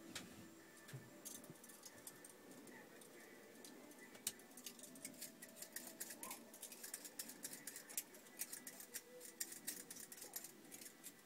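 Faint, irregular clicks and crackles over near silence, sparse at first and coming thick and fast from about four seconds in.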